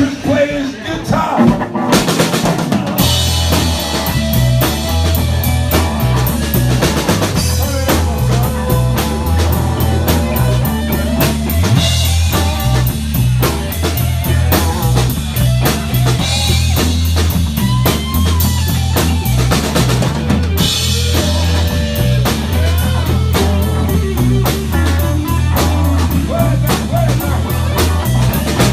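Live band playing rock music with the drum kit to the fore, snare and kick drum hitting over a steady repeating bass line.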